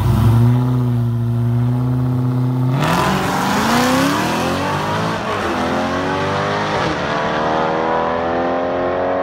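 Drag-racing cars, the nearer a modified Dodge Charger Hellcat with a supercharged V8, held at steady revs on the starting line, then launching hard at about three seconds. The engine pitch climbs, drops back at each gear shift twice, and climbs again as the cars pull away down the strip.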